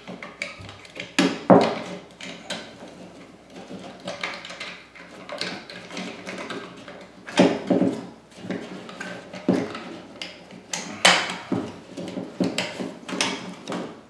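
A blue plastic old-work electrical box being handled and pushed against a drywall opening as wires are fed into it. Irregular plastic clicks, knocks and scrapes, with a few sharper knocks.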